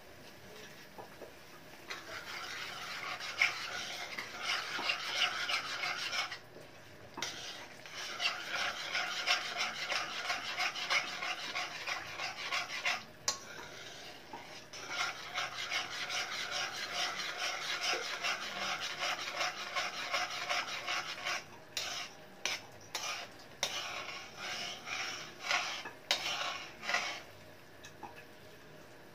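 Metal spoon stirring and scraping around the inside of a wok of sweet and sour sauce, in quick continuous strokes. It pauses twice, then ends in a string of short separate scrapes.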